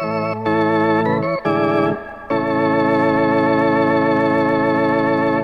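Closing music played on an organ: a few short held chords, then a long final chord of about three seconds that stops abruptly near the end.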